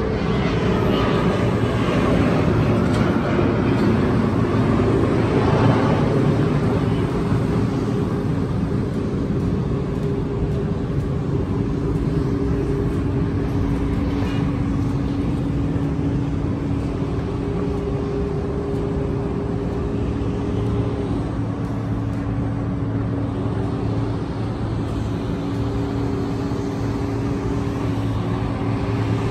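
Steady urban traffic din from the roads and highway below, with a constant low machine hum running through it; the noise is busier and louder for the first six seconds or so.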